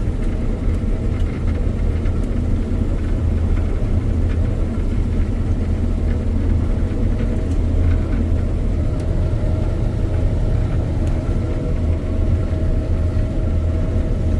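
Combine harvester running steadily while reaping wheat: a constant low engine and machinery drone, with a faint thin whine that comes in during the second half.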